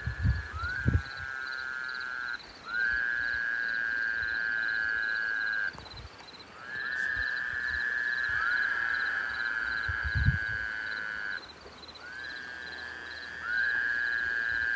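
Frogs calling in long, steady trills of several seconds each, two or more overlapping at slightly different pitches, each trill opening with a short rising sweep. A few low thumps come near the start and again about ten seconds in.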